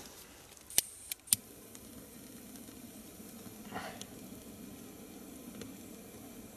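A fatwood (resin-rich pine kindling) stick being lit: a few sharp clicks about a second in, a short scrape near four seconds, and a faint steady hiss of a small flame.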